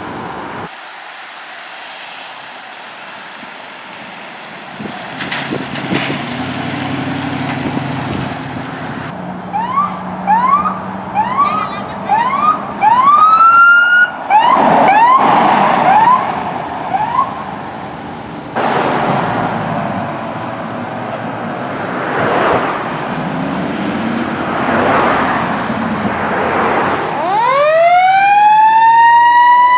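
Emergency vehicle sirens in traffic: vehicle engines and traffic at first, then a run of short rising whoops from a siren about a third of the way in, and near the end a siren winding up to a steady high wail.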